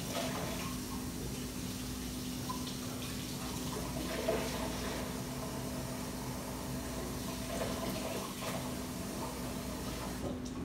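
Kitchen tap running steadily into the sink while a plastic syringe is rinsed out under it, with a small knock about four seconds in.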